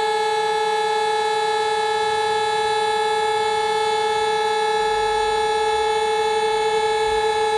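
Siren holding one steady pitch with a stack of overtones, sounding the fire brigade's alarm. A low rumble joins about five seconds in.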